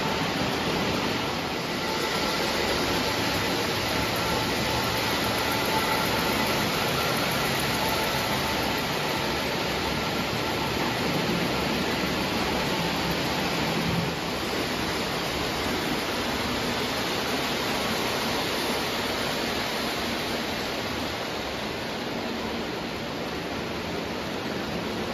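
Lionel O gauge model train running on three-rail tubular track: a steady rushing noise of the wheels and motor.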